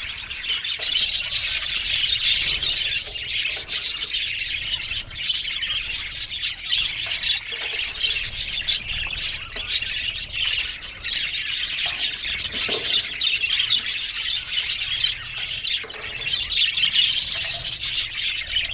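A colony of budgerigars chattering and chirping together, many short overlapping warbles and chirps without a break.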